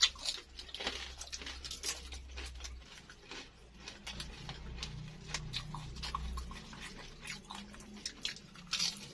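Close-miked crunchy biting and chewing of a crispy fried baklor, an egg martabak in a lumpia-wrapper shell with a vermicelli filling: a string of irregular sharp crunches and mouth clicks.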